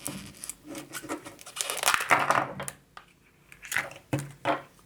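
Crinkling and tearing of thin plastic and foil packaging from a Kinder Joy egg being opened by hand, in a run of rustles that is loudest about two seconds in.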